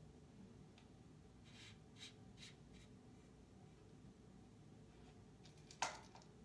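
Faint clicks and rubbing from hands working the head and knob of a camera tripod, with one sharper click near the end.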